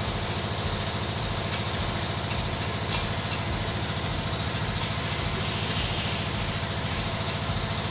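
Steady engine-like drone of a machine running without change, with a few faint clicks of small metal parts as a nut and washers are worked onto a T-bolt.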